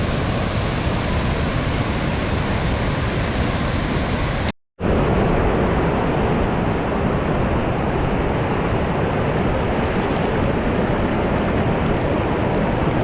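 Waterfall water rushing, a loud steady noise with no pitch, broken by a brief gap about four and a half seconds in before it resumes.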